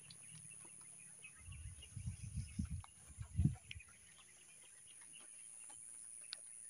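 A cluster of low rumbling bursts on the phone's microphone for about two seconds, starting about a second and a half in, typical of wind buffeting or handling while the phone is moved. Behind it is a faint outdoor background of scattered small chirps and a thin, steady high tone.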